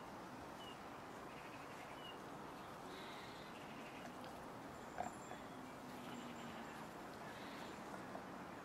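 Quiet outdoor background hiss with faint, scattered bird chirps, and one sharp click about five seconds in.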